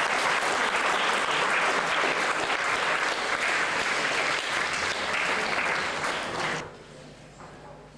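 Audience applauding, a dense steady clapping that stops fairly quickly about six and a half seconds in.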